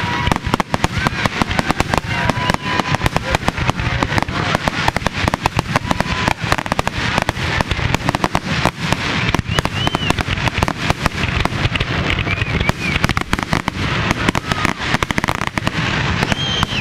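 Aerial fireworks display: a dense, unbroken barrage of shell bursts and crackling, many sharp bangs a second.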